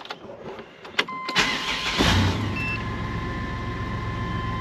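1998 GMC Safari's 4.3-litre V6 started after sitting unused for a long time. A click of the ignition comes about a second in, with a thin steady whine from then on. The starter cranks briefly, and the engine catches about two seconds in and settles into a steady idle.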